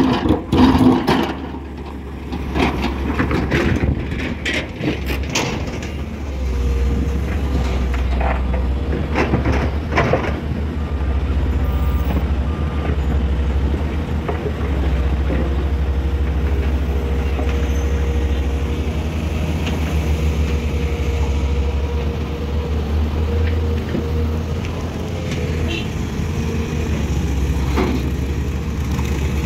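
Diesel engines of a tracked excavator and dump truck running steadily under load. Sharp knocks and clatters of rock striking the steel bucket come in the first ten seconds.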